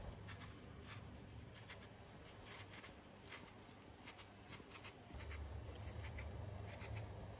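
Faint, short scrapes of a small knife cutting the peel from an apple in a continuous spiral.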